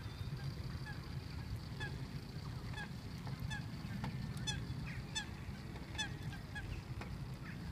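Geese honking, a string of short calls roughly every half second to a second through the middle, over a low steady rumble.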